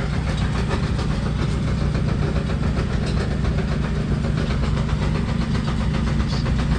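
Ore-milling machinery running with a steady, engine-like low drone and a faint, rapid clicking over it.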